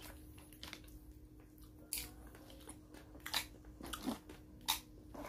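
Close-up chewing of a mouthful of fried fish and rice, with sharp wet mouth clicks and smacks about every second.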